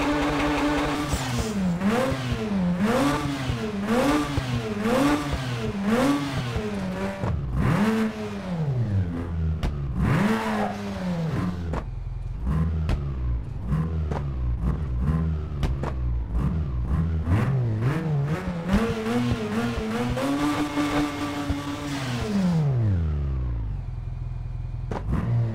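Mazda RX-8's twin-rotor Wankel rotary engine revved through its exhaust again and again: quick blips rising and falling about once a second, then bigger revs, a settle to a low idle, and more revs ending in one long fall near the end.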